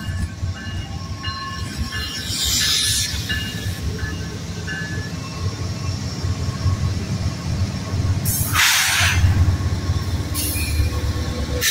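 Norfolk Southern GE ET44AC diesel locomotive passing close by, its engine and wheels making a continuous low rumble. A grade-crossing bell dings repeatedly through the first few seconds, and short bursts of hiss come about two seconds in and again near the end.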